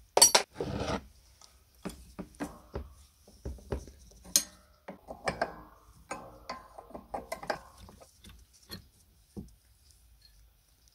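Metal clinks, taps and scraping of a spanner working a nut off a bolt on an old clay-pigeon trap's linkage. A sharp, ringing metal clink comes just after the start, and a denser run of clatter follows in the middle.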